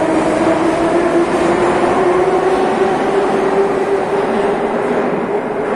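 Metro train pulling out of the station: a loud, steady rumble with a traction-motor whine that slowly rises in pitch as it gathers speed.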